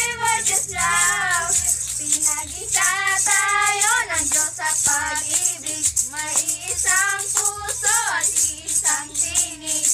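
Girls singing a Christmas carol together, accompanied throughout by a rattle on a stick shaken in a steady rhythm.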